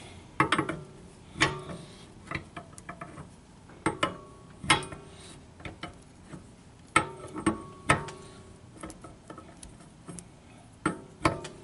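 Box wrench clicking and clinking against a metal spreader bar as the bar is turned out to tension a sling seat: irregular sharp metallic clicks, some with a short ring.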